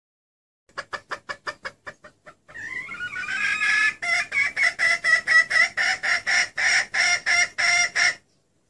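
Female red junglefowl calling: a fast run of short clucks, then a drawn-out wavering call, then a string of clucks at about four a second that stops suddenly. This is a hen's call used as a lure to draw in male junglefowl.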